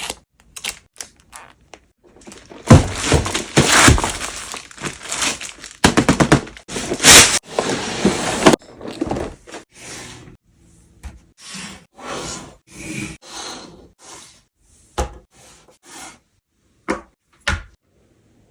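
Collectible figure box and its packaging being handled and opened: a few light knocks, then several seconds of dense scraping and rubbing, then short rustles and a couple of sharp clicks near the end.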